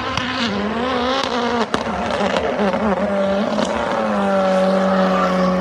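Performance car engine revving hard: its pitch wavers up and down with the throttle, then holds steady near the end.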